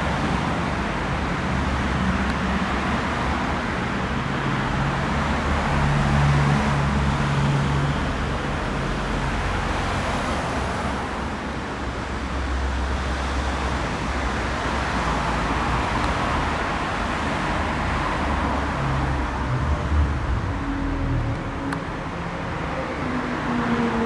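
Jet engine roar of a Boeing 787-9 Dreamliner: a steady, broad rumble that swells a little about six seconds in and again near the end.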